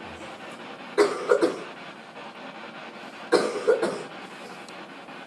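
A person coughing: two short bouts, about a second in and again after about three seconds, each of two quick coughs.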